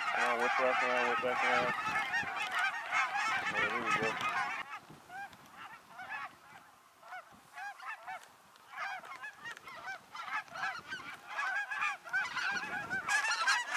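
A large flock of snow geese calling overhead: a dense chorus of many overlapping high calls, thinning out about five seconds in and building again toward the end.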